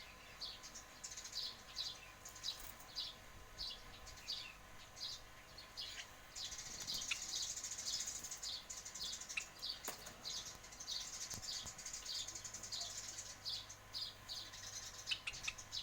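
Lovebird chirping in short, sharp calls repeated about twice a second, breaking into a stretch of rapid, buzzy chatter in the middle.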